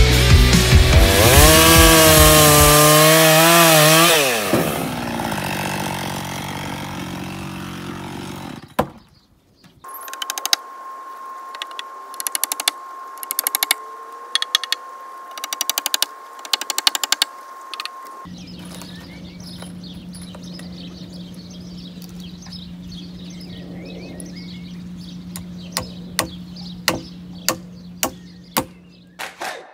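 Distorted rock guitar music with a bending, wavering note that fades out over the first several seconds. Then a hammer driving nails into wooden roof poles: quick runs of blows, later single strikes near the end, over a steady hum.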